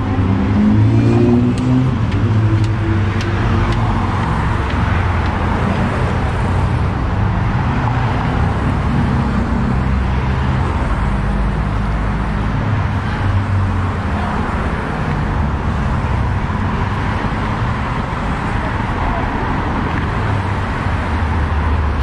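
Steady traffic noise from cars driving past on a busy multi-lane highway, a continuous rushing hum with no single loud event.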